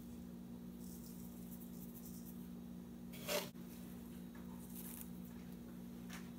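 A small spoon scraping a dollop of ginger-garlic paste off onto raw chicken in a steel bowl: one short scrape a little past three seconds in, with faint handling rustles, over a steady low hum.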